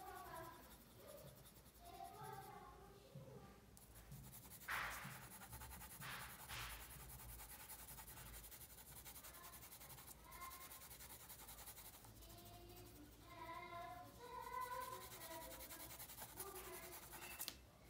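Faint scratching of a coloured pencil shading on paper, with two louder strokes about five seconds in and again a second and a half later. Faint voices murmur in the background.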